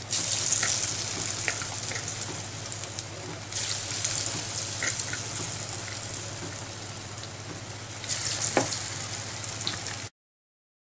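Battered green chilli pakoras deep-frying in hot oil: a steady, dense sizzle that swells as battered pieces are dropped into the pan at the start and again about three and a half seconds in. A single knock comes near the end, and the sound cuts off suddenly just before the end.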